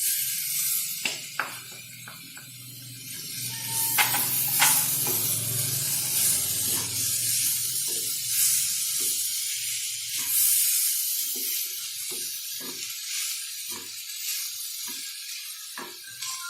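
Blended cauliflower sizzling in hot oil in a frying pan with onion and capsicum, a steady hiss, with the knocks and scrapes of a spatula stirring it.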